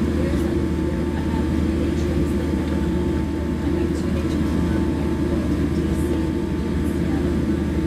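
Steady airliner cabin noise on the ground before takeoff: a low, even rumble and hum from the idling jet engines and cabin air system, with a faint steady whine above it and a few small ticks.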